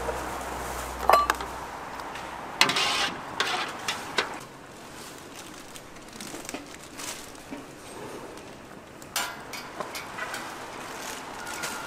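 Irregular clatter of dishes and kitchen utensils: scattered knocks and clicks, with a short burst of clatter about two and a half seconds in and a brief ping about a second in.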